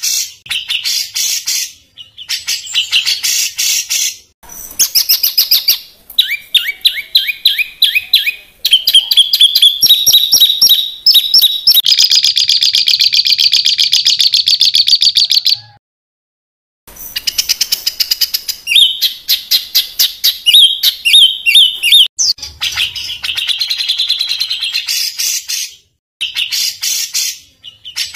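A songbird singing in harsh, rapid-fire phrases of fast repeated high notes (the 'tembakan kasar' style), phrase after phrase with short gaps between and one pause of about a second midway.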